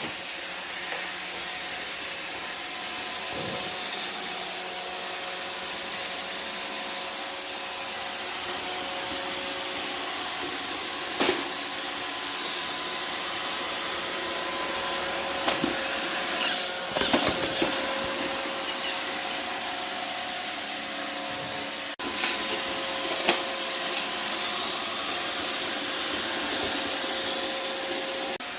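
iRobot Roomba robot vacuum running: a steady whirring hiss with a faint motor hum, broken by a few sharp knocks, one about eleven seconds in and a cluster in the second half.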